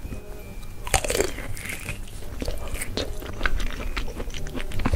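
Close-miked eating of peeled mandarin oranges: a loud juicy squelch about a second in, then wet chewing with small mouth clicks and smacks.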